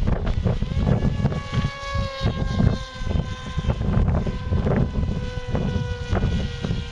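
Heavy wind buffeting the microphone in gusts, with the thin whine of an RC glider's electric motor and propeller coming in about a second in and holding steady overhead.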